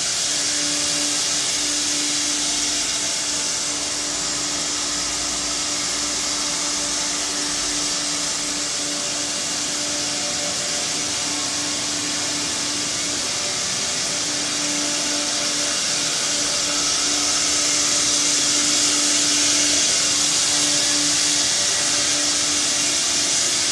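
Single-head CNC router running steadily, its spindle milling the machine bed flat: a steady whine over a loud even hiss.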